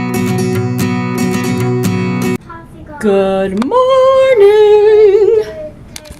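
Intro music of strummed acoustic guitar, cutting off abruptly about two and a half seconds in. About a second later a high voice sings a few long held notes.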